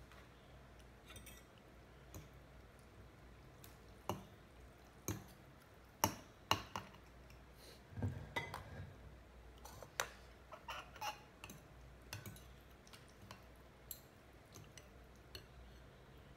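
Metal spoons clinking and scraping against a porcelain bowl while eating: a scattered run of sharp clinks, loudest about six seconds in, with a duller knock about eight seconds in.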